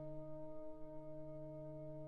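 Orchestral music: a chord held steady by the orchestra, its notes sustained unchanged.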